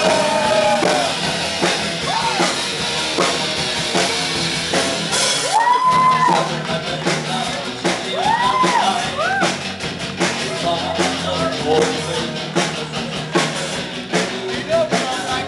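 Rock music with a drum kit, guitar and singing, with bending notes that rise and fall.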